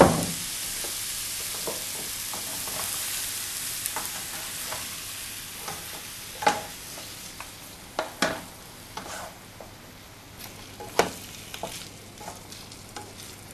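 Pieces of sausage sizzling as they brown in a lightly oiled frying pan, stirred with a utensil. The sizzle slowly fades, and the utensil knocks sharply against the pan a few times in the second half.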